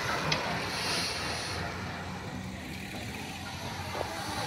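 A pack of road bicycles passing close by on a concrete road: tyre hiss that fades about one and a half seconds in, over a steady low rumble.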